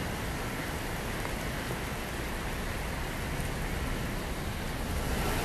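Steady rain falling on pavement and parked cars, an even hiss with a low rumble underneath.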